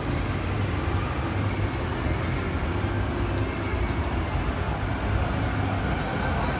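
Steady low hum and background din of a large indoor exhibition hall, even throughout with no distinct events.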